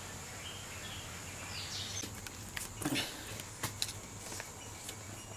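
Quiet background with a few faint bird chirps, then a scatter of short paper rustles and clicks as the pages of a child's growth-chart booklet are flipped.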